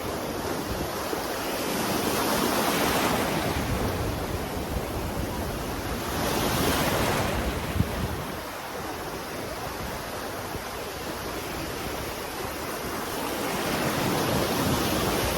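Sea waves washing in and out, the rush swelling and fading three times, with one brief sharp tick about eight seconds in.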